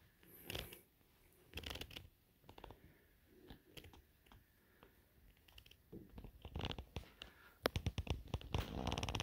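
Handling noise from a handheld phone camera being moved around: scattered scratches and rubbing, with a quick run of sharp clicks near the end.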